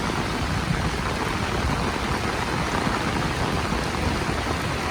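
Heavy rain pouring down steadily, with a low rumble underneath.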